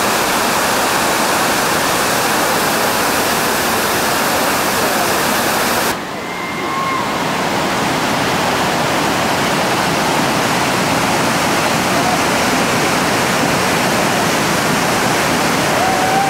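Loud, steady rushing roar of a big whitewater rapid pouring down a steep rock slide. The roar briefly drops and loses its hiss about six seconds in, where the shot cuts, then builds back.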